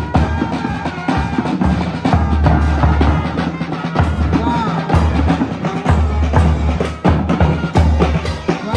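Music with drums and a heavy bass beat pulsing about once a second, under a pitched melody line.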